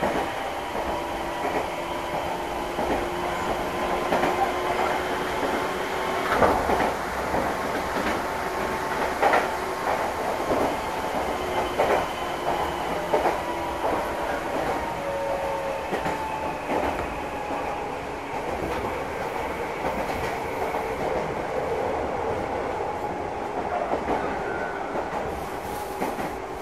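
Meitetsu express train running steadily, heard from inside the passenger car: a continuous rumble with steady humming tones, and the wheels clacking over rail joints now and then.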